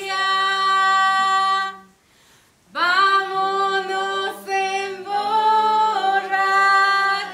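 Singing of a Costa Rican folk song: voices holding long, steady notes, stopping briefly about two seconds in, then resuming with held notes that slide up into pitch.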